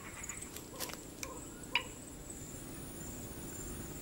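Night-time forest ambience: a steady high-pitched insect trill, with a few short chirps and clicks in the first two seconds.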